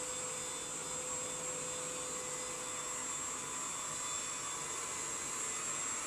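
UV Care handheld mattress vacuum cleaner (v2.0) running steadily, a high whine over the motor noise, as it is pushed across a mattress.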